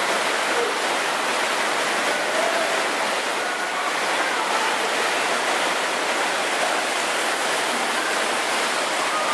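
Water rushing steadily down an artificial white-water rapids channel, an even churning hiss with no breaks.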